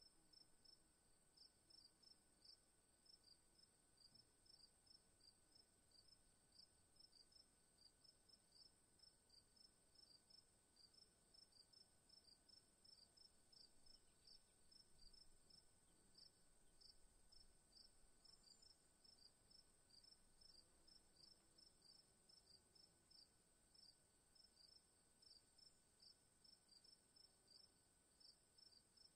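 Near silence with faint, even, high-pitched chirping, about four or five chirps a second, over a faint steady high tone.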